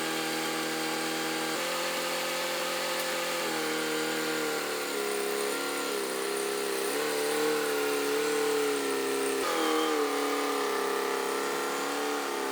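Forklift engine running steadily, its pitch shifting slightly a few times.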